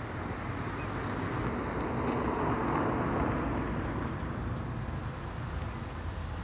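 Rain on a car's roof and windows heard from inside the cabin, over a low steady rumble, while a vehicle passes on the wet road outside, its tyre hiss swelling and fading about two to three seconds in.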